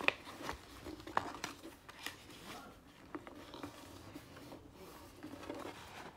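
Sheet of paper rustling and crackling as it is folded and creased by hand, with a few sharper crinkles in the first two seconds.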